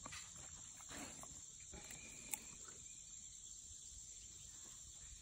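Faint wet chewing and crunching as a Belgian Malinois bites into a slice of watermelon, with a short sharp click a little over two seconds in; the chewing stops partway through.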